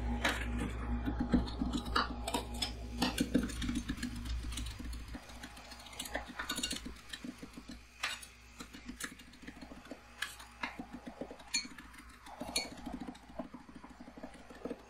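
Two metal spatulas chopping Lotus Biscoff cookies into cream on a steel rolled-ice-cream pan: quick clicking taps of the blade edges on the metal, with scraping as the mixture is spread flat. A low hum lies under the first few seconds and then stops.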